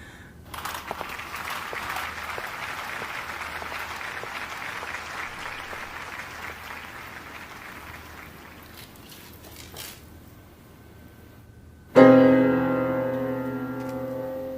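Crowd cheering that starts about half a second in and slowly fades out by about ten seconds, then a loud piano chord struck about twelve seconds in, ringing and dying away as the song's intro begins.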